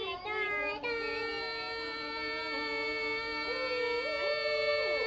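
Several voices holding a long chord together, sung or hummed into cupped hands, with one voice sliding up to a new note about four seconds in.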